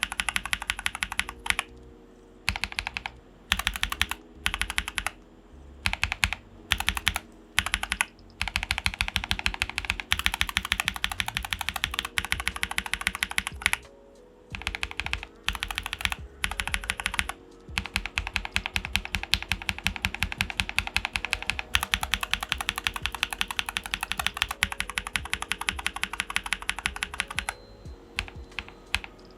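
Typing on a mechanical keyboard fitted with Glorious Panda tactile switches: runs of fast keystrokes broken by short pauses, with long unbroken runs in the middle and second half.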